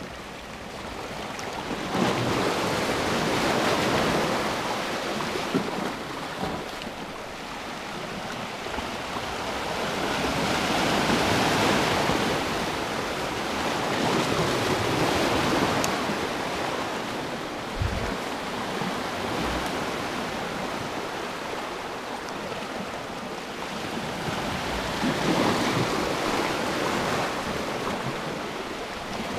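Sea waves washing and breaking over rocks, rising and falling in swells every few seconds, with a few low thumps of wind on the microphone.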